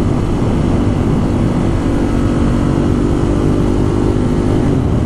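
Ducati Monster 1200 R's 1198 cc L-twin engine running steadily at speed, easing off slightly near the end.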